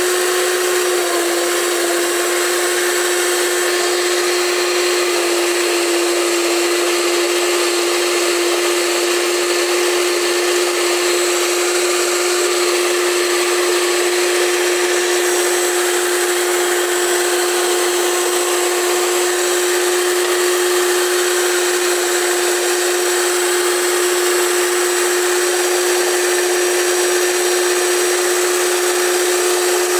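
Electric stand mixer labelled Ultra running at one steady speed, its twin beaters whisking runny cake batter: a constant motor hum with a single held whine.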